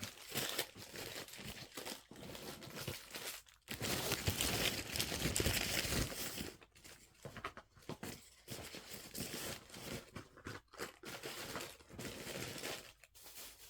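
Paper receipts and tickets being handled, crinkling and rustling in uneven bursts, loudest around the middle.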